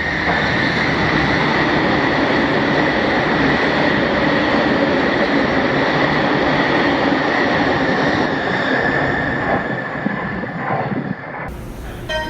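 A train passing through the station at speed: a loud, steady rush of wheel and rail noise with a high whine, easing off after about eight seconds before cutting off abruptly.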